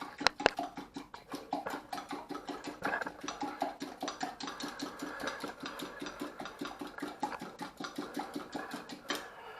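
Egg and milk being beaten in a jug: a couple of sharp clicks, then fast, even tapping and scraping of the utensil against the jug, several strokes a second, stopping shortly before the end.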